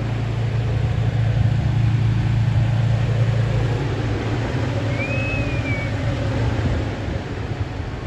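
Car engine running steadily with a low hum, which eases off after about four seconds. A brief high whistle rises and falls a little past the middle.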